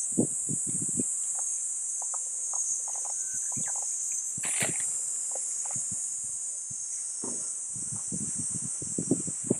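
Steady high-pitched buzzing chorus of summer insects. Soft footsteps can be heard in the first second and again near the end.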